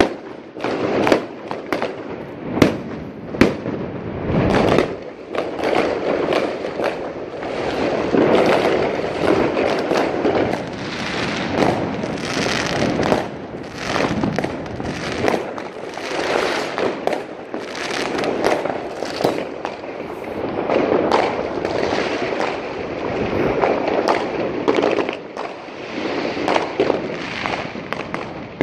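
Fireworks going off nonstop: many sharp bangs from aerial shells and firecrackers overlap with continuous crackling.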